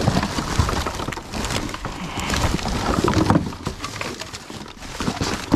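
Rubbish being rummaged by gloved hands: plastic bags and packaging rustling and crinkling, with scattered irregular knocks and clatters from bottles and boxes being shifted.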